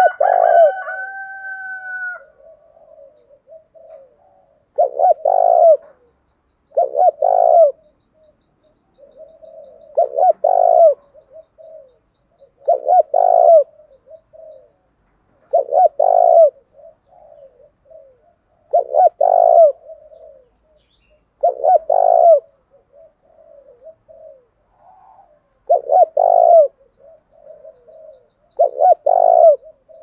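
Spotted dove cooing its fast, repeated challenge call, a loud coo phrase every two to three seconds with soft murmured notes in between. It opens with a loud held note lasting about two seconds.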